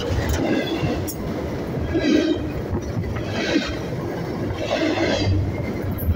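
Train cars rolling past over a camera at track level, with a steady rumble and four short, high squeals from the wheels, about one every second and a half.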